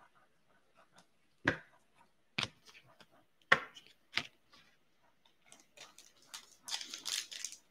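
A few sharp taps and clicks as trading cards are squared up and set down on the table, then the crinkle of a foil hockey card pack wrapper being handled near the end.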